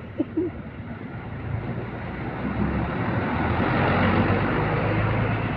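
A Hino RK bus passing close, its diesel engine and road noise growing steadily louder over a few seconds to a peak near the end. A short sharp knock comes just after the start.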